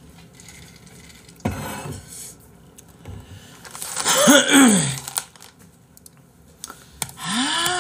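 A man yawning loudly about four seconds in, a breathy yawn with his voice sliding up and then down. A sharp knock comes about a second and a half in, and near the end another drawn-out vocal sound rises, holds and falls away.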